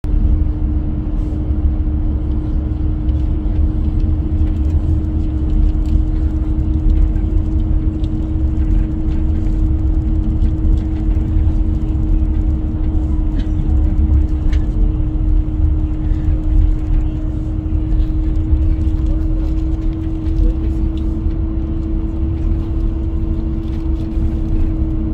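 Cabin noise of a moving vehicle at steady speed: a continuous low rumble with a constant droning hum that creeps slightly up in pitch, and a few faint ticks and rattles.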